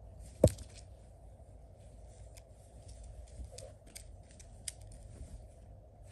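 Clothing being handled and spread out: one sharp click about half a second in, then scattered light clicks and soft fabric rustles.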